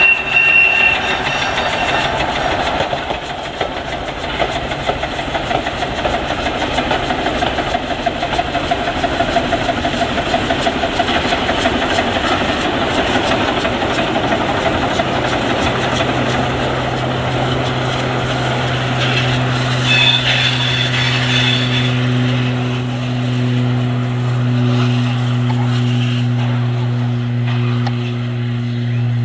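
Württemberg T3 steam tank locomotive and its four coaches rolling past on the rails, then drawing away, with a high held tone in the first couple of seconds. From about halfway a steady low motor hum grows and becomes the loudest sound.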